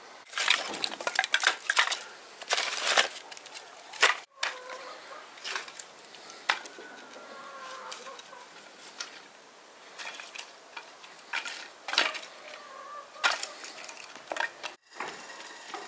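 Split wooden kindling sticks clattering and knocking together as they are picked up off the ground and gathered into a bundle by hand. There is a dense run of knocks in the first few seconds, then scattered clicks and snaps.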